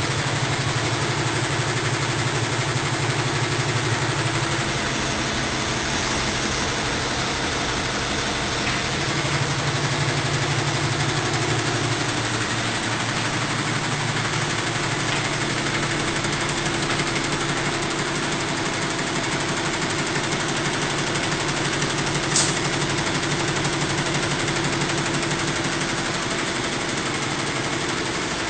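Multi-head embroidery machine running, fitted with a stepper drive for needle jumping in place of the jump solenoid: a steady, fast mechanical chatter. One sharp click comes about 22 seconds in.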